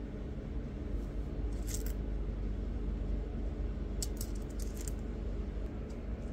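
Pieces of rough opal clicking against one another and against fingernails as they are picked up and handled. There are two short clusters of clicks, one a little after a second in and one about four seconds in, over a steady low hum.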